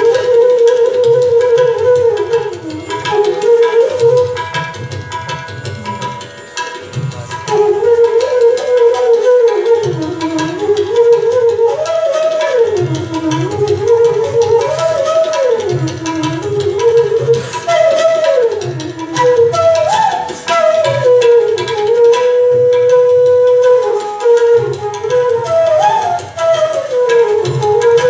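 Live Indian classical music through a hall PA system. A melody moves in slow, wide glides over a steady drone. Tabla strokes keep a rhythm underneath, falling away briefly a few times.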